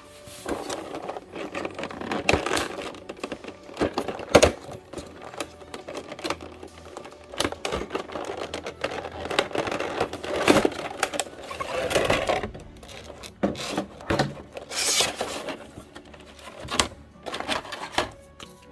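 Cardboard box and plastic packaging being handled as the contents are pulled out: irregular clicks, knocks and rustling scrapes.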